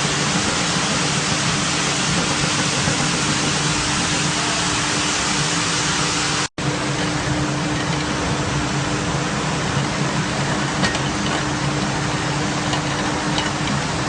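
Carpet washing machine running: a steady, loud hiss with a low hum and a steady tone beneath it. It cuts out for an instant about six and a half seconds in.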